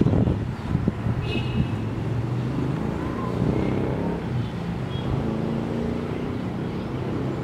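Street traffic: a motor vehicle engine running steadily, with wind noise on the microphone.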